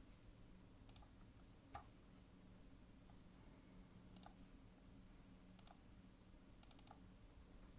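Near silence with a faint low hum and a handful of faint clicks from operating a computer, including a quick run of three or four near the end.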